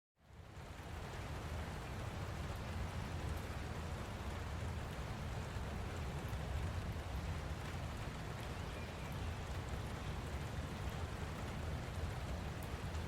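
Light rain falling steadily, fading in at the start.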